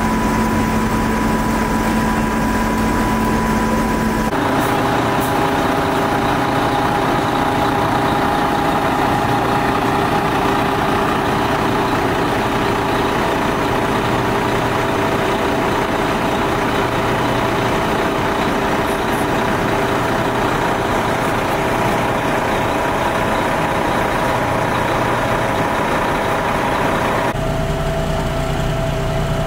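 Fire trucks idling: a steady engine drone whose pitch shifts suddenly about four seconds in and again near the end.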